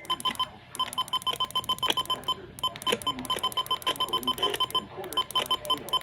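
Electronic beeping: short beeps of one pitch, about six a second, in runs of a second or two separated by brief breaks.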